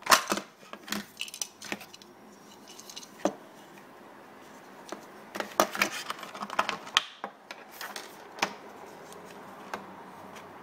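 Clear plastic blister packaging of a phone case being handled and pulled apart: irregular sharp plastic clicks and crackles, the loudest right at the start, a busy run of them around the middle, and quieter near the end.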